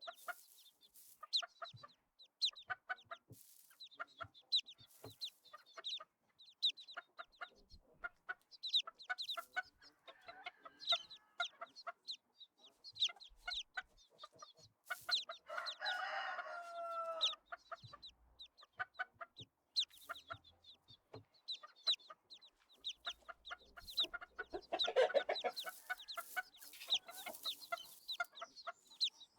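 A flock of chickens clucking busily, with a rooster crowing once about halfway through.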